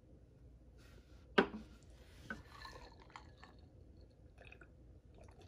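A glass is set down with a sharp knock on a wooden table about a second and a half in. Quieter drinking sounds and small clicks follow, fitting a glass of chaser over ice being sipped.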